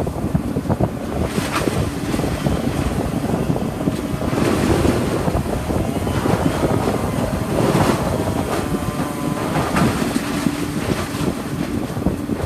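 Strong wind gusting across the microphone: a heavy, rumbling rush that swells and eases, with stronger gusts about a third of the way in and again past the middle.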